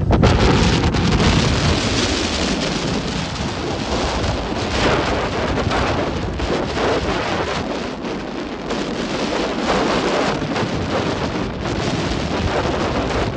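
Rough sea: waves breaking and surging, a constant loud rush of churning water and spray. Wind buffets the microphone with a low rumble in the first couple of seconds.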